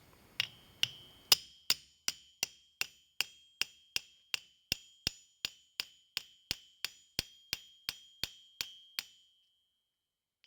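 Hammer driving a cold steel chisel against sheet brass on an steel anvil, forming a hinge barrel around a brass rod: about two dozen steady blows, a little under three a second, each leaving a high metallic ring. The blows stop about nine seconds in.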